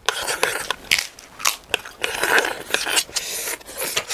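Close-miked eating of ketoprak with krupuk crackers: repeated sharp crunches and crackles of a mouthful being bitten and chewed.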